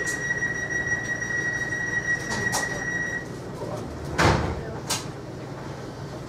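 Sliding passenger doors of a Class 230 D-Train (a converted ex-London Underground D78 stock unit) closing at a station stop. A steady high tone stops about three seconds in, a few clicks follow, and the doors shut with a loud thud just after four seconds in.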